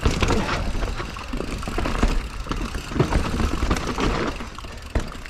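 Mountain bike riding over a rough trail: a steady low rumble with frequent short knocks and rattles.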